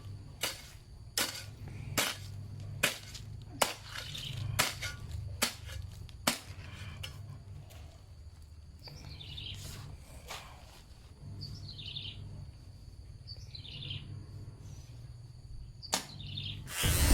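About eight sharp knocks, roughly one every 0.8 seconds, over a steady low hum. Later come short chirping bird calls.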